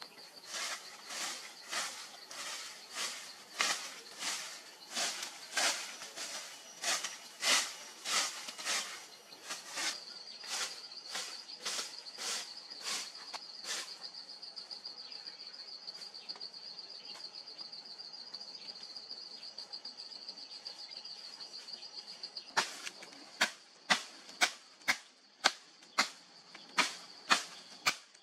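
Regular swishing strokes of a long stick sweeping through dry leaf litter, about two a second, over a steady high insect trill. About 22 seconds in they give way to sharp snapping cuts, two or three a second, as grass stems are cut by hand.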